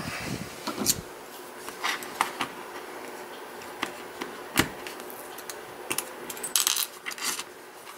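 Light, irregular metallic clicks and taps from handling a Sargent Signature LFIC brass lock core and a small tool during disassembly. The sharpest click comes about four and a half seconds in, with a few short scratchy sounds between six and seven and a half seconds.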